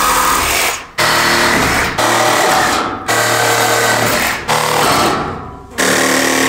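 DeWalt cordless reciprocating saw running and cutting through a cast-iron radiator's steel supply pipe, with a fast, steady buzz of blade strokes. It comes in several stretches that start and stop abruptly.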